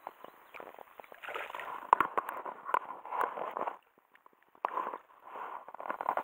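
Water sloshing and splashing in two irregular bursts, with a few sharp clicks among them.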